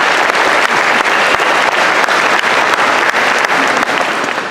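Large audience applauding, many hands clapping in a dense patter that eases slightly near the end.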